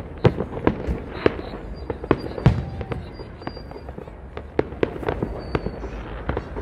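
Aerial fireworks shells bursting in a rapid, irregular series of sharp bangs and crackles, the loudest about two and a half seconds in, over a steady low rumble.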